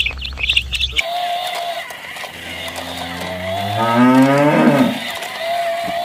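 A single long cow moo lasting nearly three seconds, rising in pitch and loudness and then dropping off. In the first second, before a cut, young birds peep rapidly.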